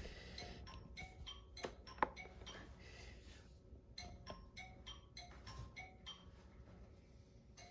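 Phone ringtone playing faintly: a repeating little tune of short, bright chime-like notes. A few sharp clicks sound over it.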